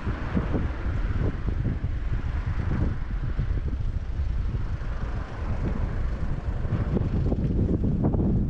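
Wind buffeting the camera's microphone: a continuous, gusty low rumble with irregular flutters.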